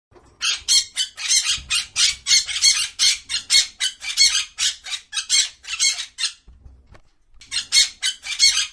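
Parrot squawking: a rapid run of short, harsh, shrill squawks, about three a second. The calls break off briefly about six seconds in, then a few more follow.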